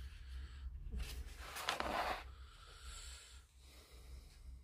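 Soft paper rustling as a page of a plastic model kit's instruction booklet is turned, with the main swish about two seconds in.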